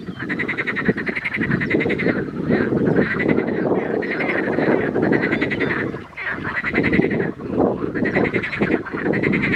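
Chorus of edible frogs (Pelophylax kl. esculentus), many calling at once with fast-pulsed croaks that overlap into a near-continuous din, dipping briefly about six and seven and a half seconds in.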